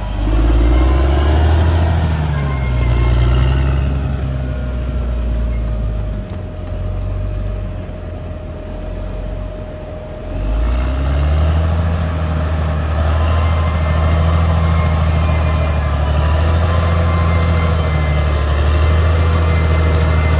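Caterpillar D6R XL bulldozer's diesel engine running under work load, its pitch rising and falling in the first few seconds. It drops quieter for several seconds, then runs loud and steady again from about halfway through.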